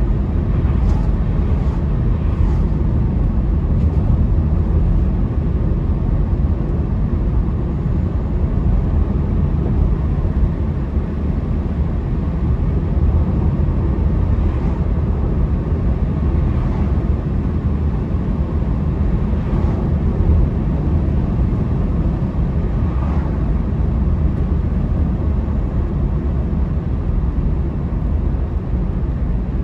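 Steady low rumble of a moving car's tyres and engine heard from inside the cabin, with a few oncoming cars briefly passing by.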